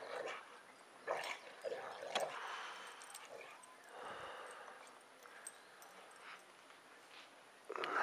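Two dogs play-fighting, with short bursts of yips and growly vocal noises in the first couple of seconds and again near the end, and faint sound in between.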